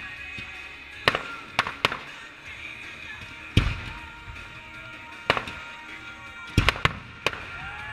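Fireworks display: aerial shells bursting with about nine sharp bangs at irregular intervals, several in quick succession near the end.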